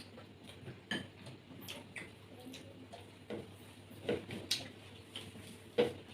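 People eating a meal, making a scattered run of soft clicks and small taps at uneven intervals, with one sharper tap near the end.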